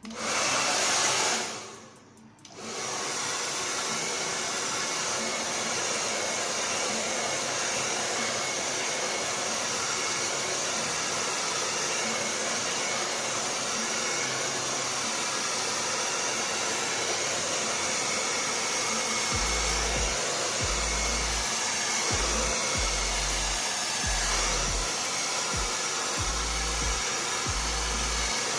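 Handheld blow dryer running steadily as it dries natural hair. It cuts out for a moment about two seconds in, then runs steadily again. In the second half there are intermittent low rumbles.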